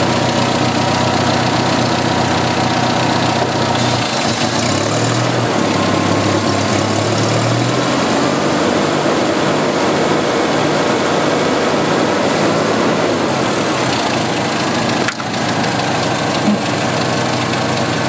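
Jeep 2.5-litre four-cylinder engine idling with its crankcase ventilation hose pulled off the valve-cover fitting, running on a raw vacuum leak: a rough, fast idle from an engine running lean.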